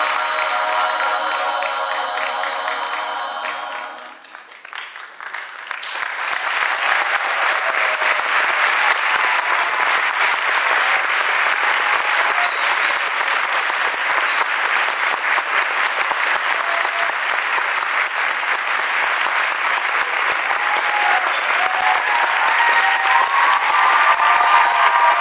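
A women's choir holds a final chord that ends about four seconds in. After a short pause, an audience applauds steadily.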